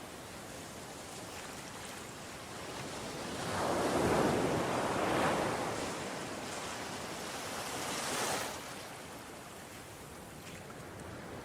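Ocean waves breaking in surf: a wave swells and crashes about four seconds in, and a second, hissier wash follows around eight seconds, over a steady rush of surf.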